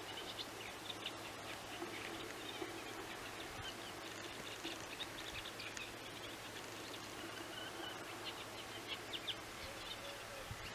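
Small birds chirping and twittering, many short calls scattered throughout, over a steady low outdoor background noise.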